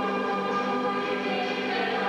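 Choir singing a slow hymn in held, sustained notes.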